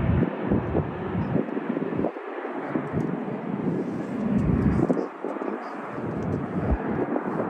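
Jet airliner engine noise, a steady rush of sound, with irregular low gusts of wind buffeting the microphone.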